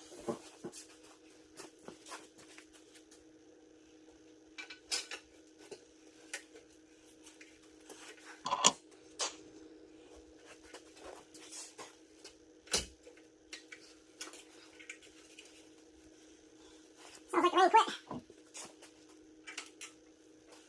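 Scattered metal clinks and knocks of tools and small parts being handled during reassembly, over a steady low hum. A short pitched sound, like a voice or an animal, breaks in near the end.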